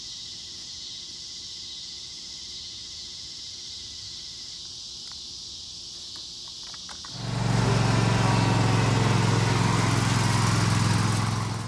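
Steady high insect hiss with a few light clicks, then about seven seconds in a John Deere riding lawn mower's engine starts and runs steadily and loudly.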